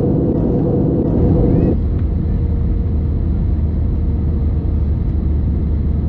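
Steady rumble of jet engines and airflow inside an airliner cabin during the descent. About two seconds in it changes abruptly to a deeper, lower rumble with a faint steady hum.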